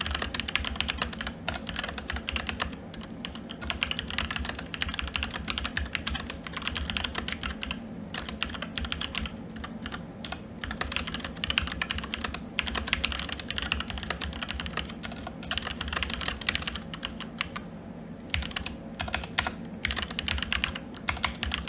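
Fast continuous typing on a SteelSeries Apex 7 TKL mechanical keyboard with red linear switches, the keystrokes clacking densely with a few brief pauses.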